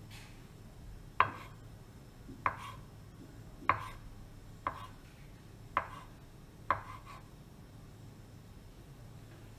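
Kitchen knife dicing ham on a wooden cutting board: six sharp knocks of the blade hitting the board, about one a second, stopping about seven seconds in.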